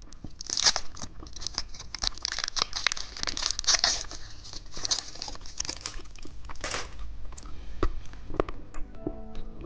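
Plastic candy wrapper being crinkled and torn open by hand, a dense run of crackles and sharp snaps that fades out after about seven seconds. Light music comes in near the end.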